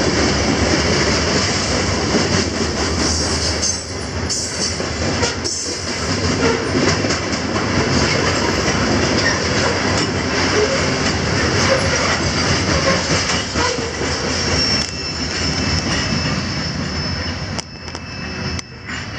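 A loaded coal train's hopper cars rolling past close by: a heavy, steady rumble and rattle of steel wheels on the rails. The noise drops off near the end as the last car passes.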